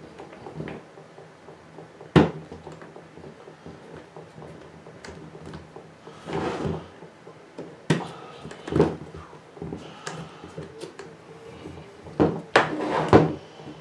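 AmazonBasics small hard plastic camera case being opened. Its latches snap open with sharp clicks, one about two seconds in and another about eight seconds in, with handling rustle in between. Near the end there is a burst of plastic knocks as the lid is pulled open.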